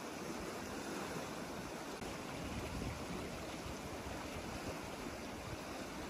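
River water flowing: a steady, even rushing.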